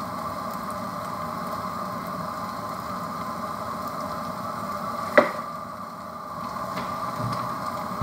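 Prawns, potatoes and onion stalks sizzling steadily under a steel lid in a pot on a gas stove, cooked over high heat. A single sharp knock about five seconds in.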